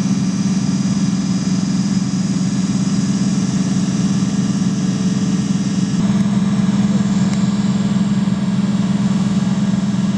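Military vehicle diesel engine running steadily, a loud, even low drone. Its tone shifts slightly about six seconds in.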